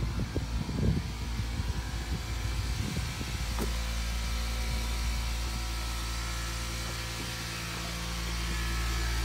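A motor running steadily with a low, even hum, with some low rumbling bumps on the microphone in the first second and again around three seconds in.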